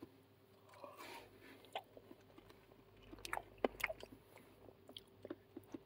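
Quiet chewing of chips dipped in curry sauce, with small scattered clicks of a plastic spork against a plastic takeaway tub; the clicks are a little louder about three seconds in.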